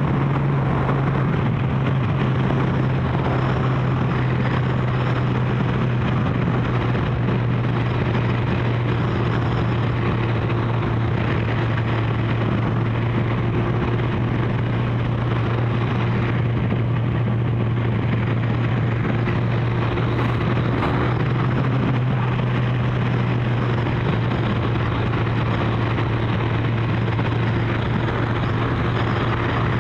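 Kawasaki GPZ1100 inline-four motorcycle engine running at a steady cruising speed, its note even throughout, with wind rushing past.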